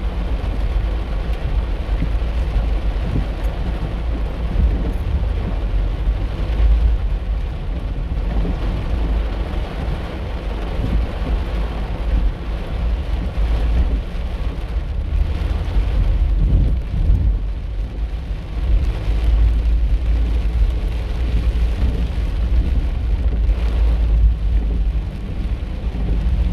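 Heavy rain drumming on a moving car's roof and windshield, heard from inside the cabin, over a steady low rumble of the car and its tyres on the wet road.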